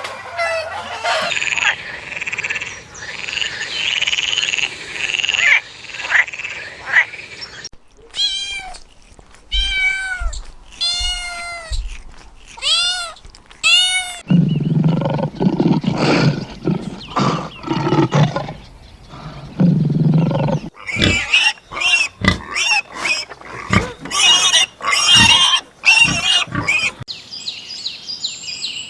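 Several different animal calls one after another: a run of about five rising-and-falling pitched calls, then a long low, rough-sounding stretch, then a quick series of short sharp calls and clicks.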